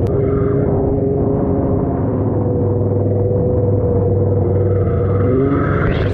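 Stand-up jet ski engine running steadily and sounding muffled, then revving up with rising pitch about five and a half seconds in. Spray hits near the end.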